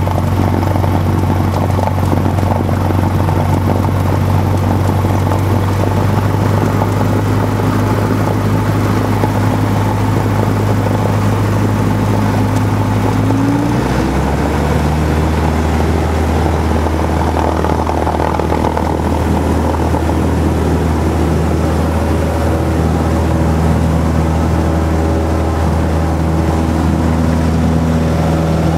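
Single-engine Cessna's piston engine and propeller running at takeoff power, heard from inside the cabin during the takeoff roll and climb-out. The engine note rises briefly and shifts pitch about halfway through.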